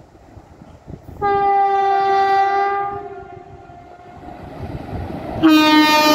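Indian Railways electric locomotive's horn sounding two long blasts as the train approaches. The first starts about a second in and lasts nearly two seconds. The second comes near the end, lower in pitch and sliding down, over the rising rumble of the oncoming train.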